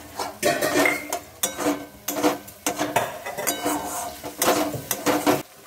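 Metal utensil stirring a thick spice paste in a kadai, scraping and clanking against the pan about twice a second, stopping shortly before the end.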